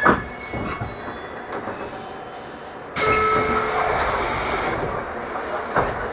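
A sharp clunk, then about three seconds in a loud burst of compressed-air hiss lasting under two seconds, from a stopped 813 series electric train's air system.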